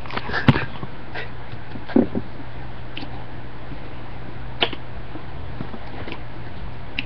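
A few scattered sharp clicks and knocks over a steady low hum, the loudest click about half a second in and a duller knock about two seconds in.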